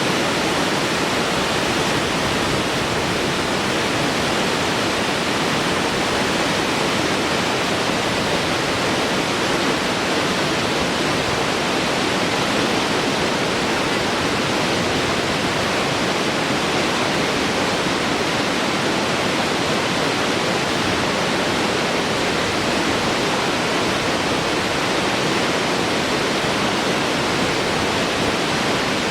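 Waterfall: water falling steadily in a constant, even rush without a break.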